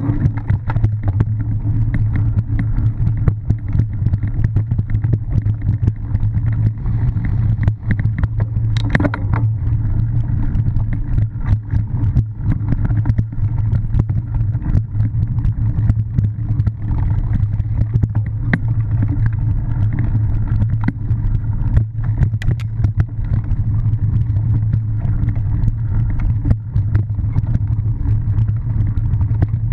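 Wind rushing over the microphone of a camera on a cyclocross bike riding fast over grass and dirt, a steady rumble, with frequent knocks and rattles as the bike bounces over the rough ground.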